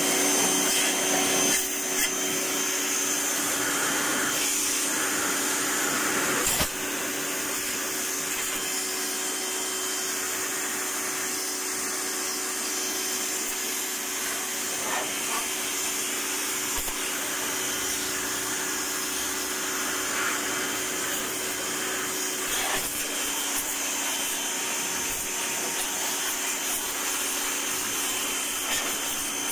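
Pressure washer running at high pressure, its motor humming steadily under the hiss of the water jet spraying into a car's radiator and AC condenser fins. The level drops slightly about seven seconds in.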